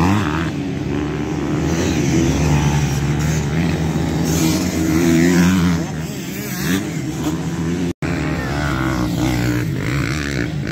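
Several motocross bikes' engines revving up and down as they race over the dirt track, pitch rising and falling with gear changes and throttle. The sound cuts out for an instant about eight seconds in.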